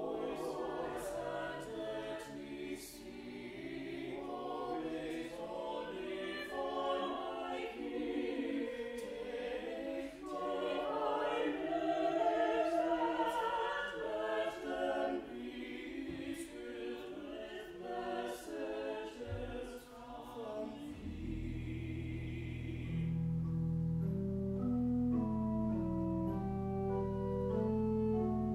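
Church choir singing a hymn anthem with pipe organ accompaniment. About 21 seconds in, low sustained organ pedal notes come in, the voices end a couple of seconds later, and the organ plays on alone.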